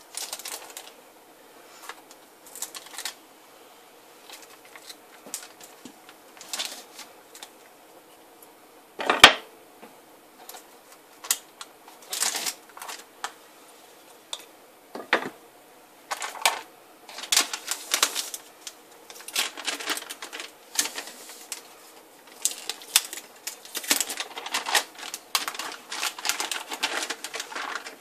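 Handling noises from unmolding a loaf of cold-process goat milk soap: scattered clicks, taps and rustling scrapes, with one sharp knock about nine seconds in and busier clusters of scraping over the second half.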